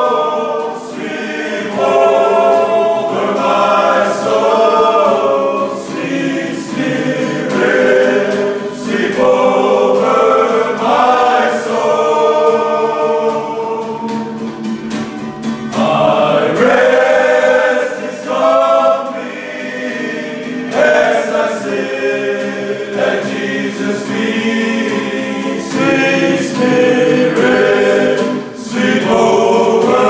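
A group of men singing together as a choir, phrase after phrase, with short breaks between the sung lines.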